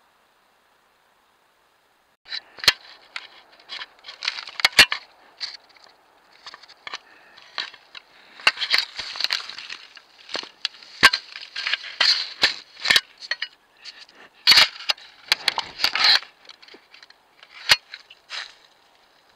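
A black bear nosing and rubbing against a trail camera: a run of sharp clicks and knocks with scraping and brushing noise from its fur and face on the camera housing, starting about two seconds in.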